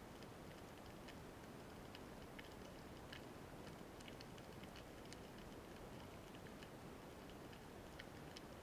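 Faint underwater ambience: a low steady hiss with scattered, irregular soft clicks, a few a second.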